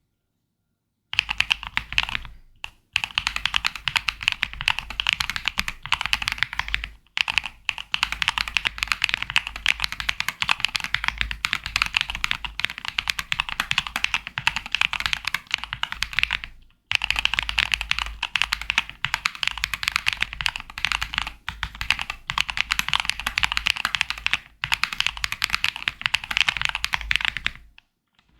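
Kezewa Enter67 V2 mechanical keyboard being typed on quickly: a dense, continuous stream of keystroke clicks starting about a second in, with short breaks around 3, 7, 17 and 28 seconds in.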